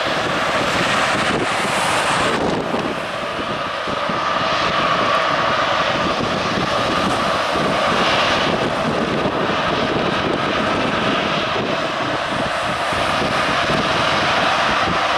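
Boeing 777-212's twin jet engines running at idle while the airliner taxis: a steady rushing hum with a constant whine in it.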